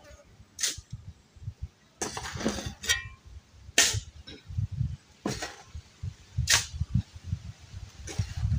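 A series of sharp knocks from hand-tool building work, about seven of them at uneven intervals of roughly one to one and a half seconds, with low thumping beneath.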